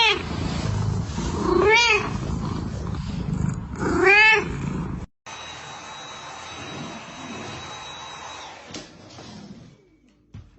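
Domestic cat meowing three times, each call rising then falling in pitch, over a low rumbling noise. About five seconds in the sound cuts off abruptly, leaving only a faint steady hum that fades out.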